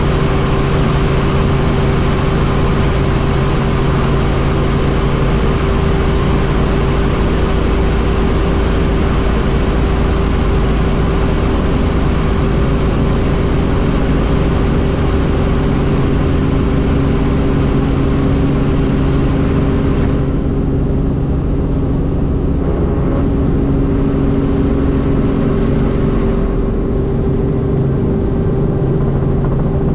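Helicopter running steadily: a loud, constant drone with a steady hum under a wide hiss. The high hiss drops away for about six seconds some two-thirds of the way through.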